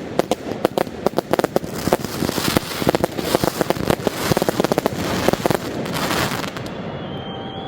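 Professional fireworks display: a dense, rapid run of bangs and crackling, which thins out and stops near the end.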